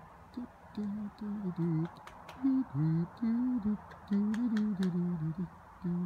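A person humming a wordless tune in short phrases, with a few faint clicks.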